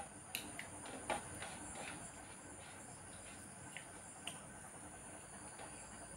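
Faint scattered clicks and taps of people eating rice by hand from metal plates, the loudest about a second in, over a steady high-pitched whine.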